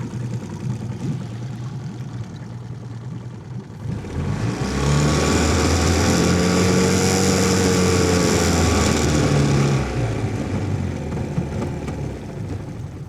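15 HP four-stroke outboard motor running at part throttle, revved up about four seconds in, held at high revs for about five seconds, then throttled back. At high revs the warmed-up motor is missing (misfiring), a fault the owner cannot yet explain.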